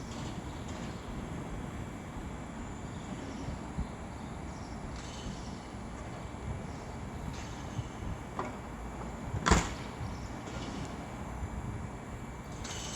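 Steady background noise of a railway station platform, with no train moving, and a sharp knock or clack about nine and a half seconds in.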